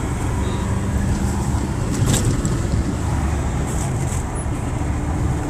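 Four-wheel drive under way on the road: steady engine and road rumble, with a brief rattle about two seconds in.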